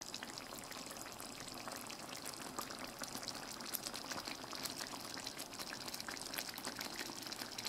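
Chicken kofta curry simmering in a pan, the thick gravy bubbling with a steady stream of small pops and crackles.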